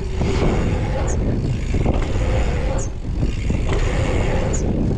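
Wind buffeting the microphone over the rumble of a dirt jump bike's tyres rolling on an asphalt pump track. A faint, short, high chirp comes back about every second and a half to two seconds.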